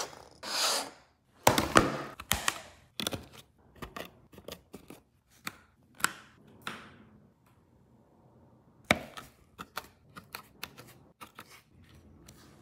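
Sharp clicks and taps of small electronic parts being handled: a sensor module on a cutting mat, a USB plug pushed into a laptop port, a small speaker set onto a breadboard. A brief rubbing rustle opens it, some clicks come in quick clusters, and there is a quiet pause in the middle.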